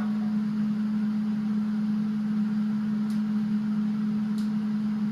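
Steady low electrical hum from workshop equipment, with two faint ticks about three seconds and four and a half seconds in.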